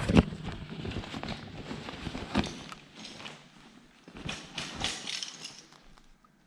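Handling noises: a loud knock just after the start, then irregular clunks and knocks, with a stretch of rustling around four to five seconds in.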